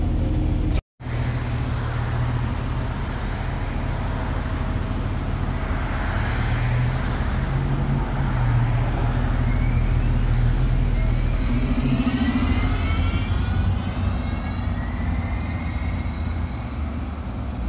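2007 Orion VII 30-foot transit bus pulling away. The engine runs steadily under load, and in the second half a whine climbs in pitch as the bus gathers speed.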